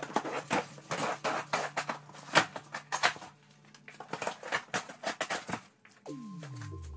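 A long cardboard shipping box being cut and torn open, with quick, irregular scraping, crackling and tearing strokes of blade and cardboard. Near the end, background music with a falling tone comes in.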